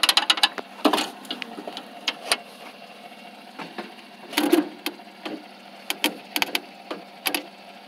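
Irregular clicks and knocks of hands and tools working on a lawn mower, with the engine not running.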